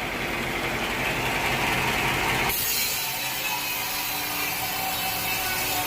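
Sawmill machinery running with a saw cutting through wood, a steady mechanical noise. The sound changes abruptly about halfway through.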